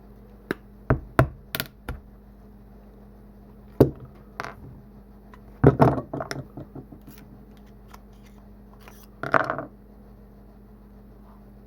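Pliers and fingers working the end off a small electronic hookah stick and handling its parts: irregular sharp clicks, taps and knocks, with a short scrape or rustle near the end.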